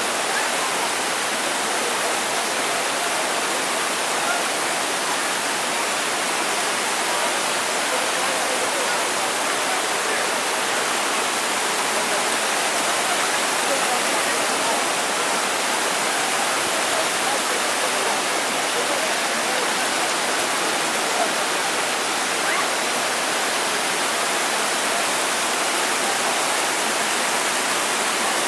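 The Karaçay river rushing and splashing over boulders in the shallows, a steady unbroken roar of water.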